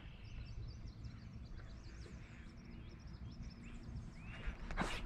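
Faint birdsong of short chirps over a steady low rumble, with a few sharp knocks near the end.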